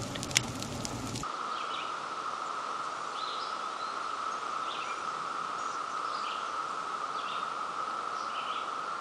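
Fire crackling with one sharp pop for about the first second, then a cut to outdoor nature ambience: a steady hiss with scattered short bird chirps.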